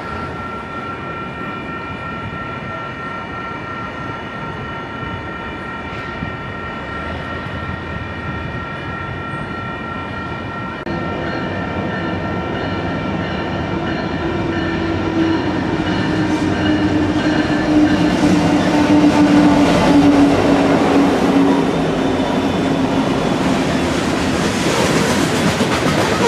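Diesel-hauled freight train approaching and passing. A steady high tone fades out about two-thirds of the way through. From about 11 s the locomotives' engine drone grows louder and slowly drops in pitch. Near the end the rolling noise of the covered hopper cars rises to the loudest point.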